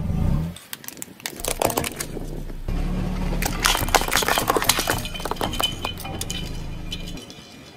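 Plastic sunglasses and toys cracking and snapping under a rolling car tyre: a quick run of sharp cracks and clinks, thickest in the middle, over a steady low rumble from the car.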